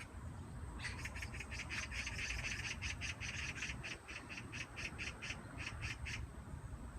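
Magpie chattering: a rapid rattle of harsh calls, about five a second, starting about a second in and breaking off near the end.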